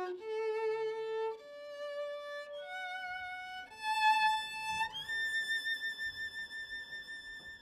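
Solo violin playing a slow melody that climbs one note at a time with vibrato and ends on a long high held note.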